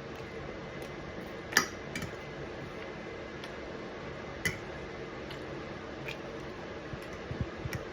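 Cutlery clinking and scraping against a plate while eating steak: a few sharp clinks, the loudest about a second and a half in and again about four and a half seconds in.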